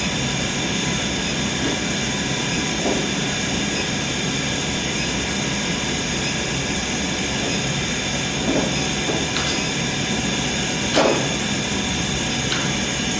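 Induction heating machine running during brazing: a steady hum with several high, level tones. A few short knocks come near the end, the loudest about two-thirds of the way in.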